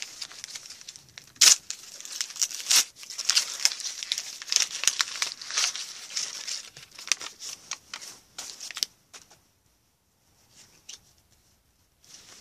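A trading-card pack wrapper being torn open and crumpled in the hands, a dense crinkling with a few sharp rips in the first three seconds. It stops about nine seconds in, leaving only a few faint rustles.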